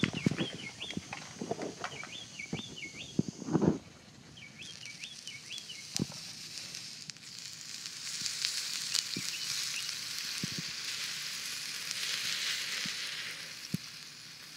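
Water from a garden hose hissing and sizzling on torch-heated steel fidget-spinner ball bearings: a steady hiss that builds from about halfway through and eases near the end. Before it come a few knocks and a run of short chirps.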